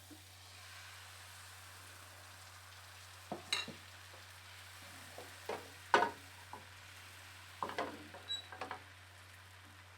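Pancake batter frying in a hot pan with a faint steady sizzle. A utensil knocks and clinks against the pan and bowl several times from about three seconds in, the sharpest knock near the middle.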